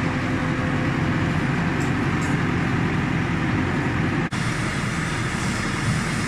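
A vehicle engine running steadily, most likely the farm tractor, with a brief break about four seconds in where the footage cuts.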